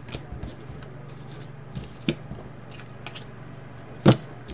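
Trading cards and packs being handled on a table: light card rustles and crackles, with a few sharp knocks, the loudest about four seconds in, over a steady low hum.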